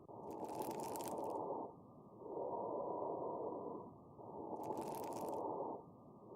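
Recorded lung sounds with fine crackles (rales): a muffled rush of breathing repeats about every two seconds, and a short spell of fine, high crackling comes twice, with alternate breaths. The crackles are the sign of fluid in the airways.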